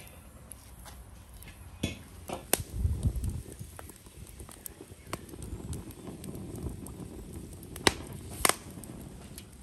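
Cookware being handled at a large metal wok: scattered sharp metal clinks and knocks as the lid comes off and oil is poured in and spread, with two louder knocks close together near the end.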